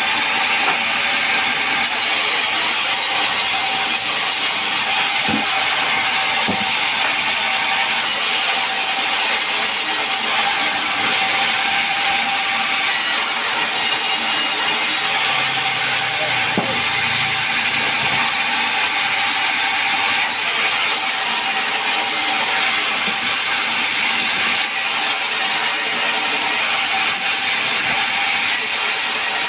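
Large sawmill saw running at a loud, steady level, a continuous mechanical noise with a steady whine held through it.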